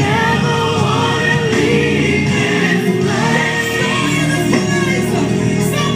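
Gospel worship music: a group of voices singing together over held instrumental backing.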